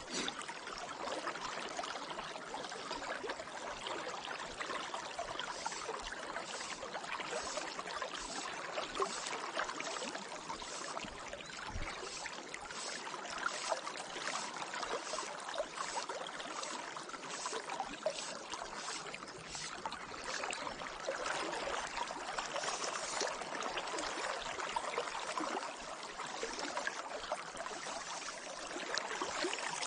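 Steady rushing and burbling of a river's flowing water. Through the middle stretch a faint, regular high ticking runs over it, about two ticks a second.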